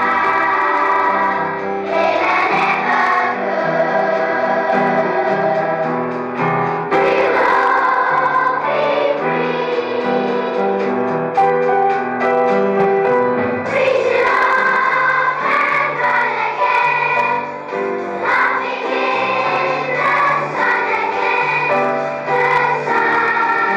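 Children's choir singing a song with instrumental accompaniment, held sung notes over a moving bass line.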